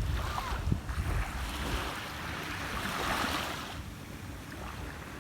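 Sea waves washing on the shore, with wind buffeting the microphone; one wave swells and falls away in the middle.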